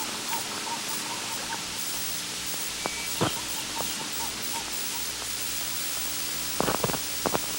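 Steady hiss of an old film or tape soundtrack, with a few faint clicks and pops, one about a third of the way in and a short cluster near the end.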